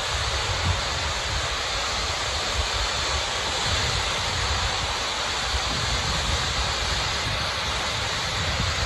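Wind buffeting the microphone over a steady rushing hiss, without a break or change.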